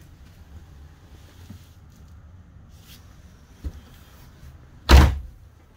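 A faint click about three and a half seconds in, then a single loud knock near the end from the RV's wooden storage cabinets being handled, over a low steady hum.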